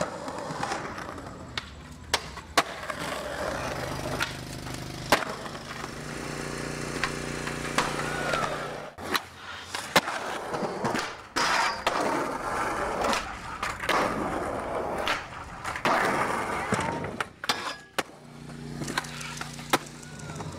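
Skateboard rolling on concrete, with the wheels' rolling rumble broken by many sharp clacks of the board popping and landing. A steady low hum runs underneath for a few seconds about four seconds in and again near the end.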